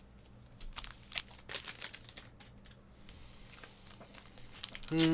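Foil trading-card pack wrappers crinkling and tearing, with cards being shuffled and handled, in a run of short irregular crackles. A voice starts loudly right at the end.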